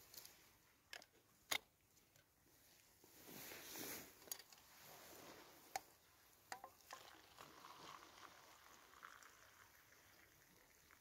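Faint clinks and knocks of metal camp-stove pans being handled. Then, in the last few seconds, boiled water is poured from a pan into a metal mug with a light, steady trickle.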